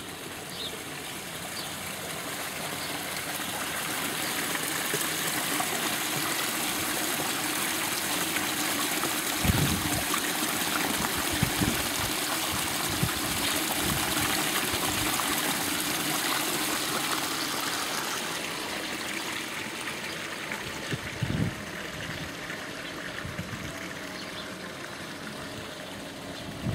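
Running, trickling water, growing louder over the first few seconds and fading in the last third, with a few low thumps along the way.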